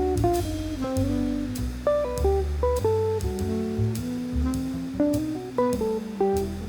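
Music: a plucked guitar melody over a bass line, with a steady drum beat.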